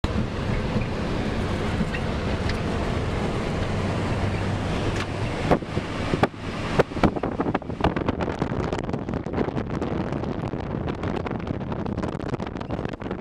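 Steady engine hum and road noise inside a truck cab driving on beach sand. About five seconds in it cuts to gusty wind buffeting the microphone over the hiss of breaking surf.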